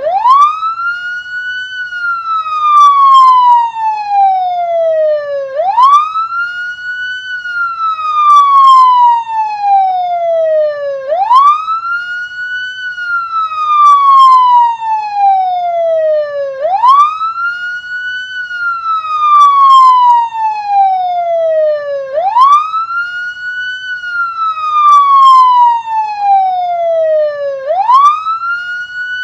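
Police siren sounding a wail. Each cycle climbs quickly in pitch and then falls slowly, repeating about every five and a half seconds.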